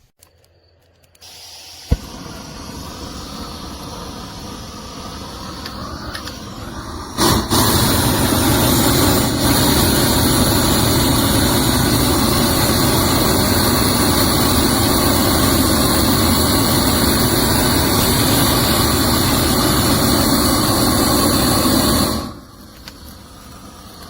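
Propane weed-burner torch: a sharp click about two seconds in, then a steady burner noise that slowly builds. About seven seconds in it jumps to a much louder, steady full-output burn, holds for about fifteen seconds, then drops back to a lower burn near the end.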